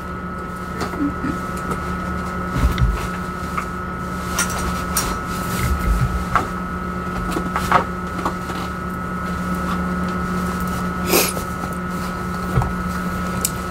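Scattered knocks, a few low thumps and light rustling as someone moves about off-camera retrieving a dropped essential oil bottle, over a steady hum.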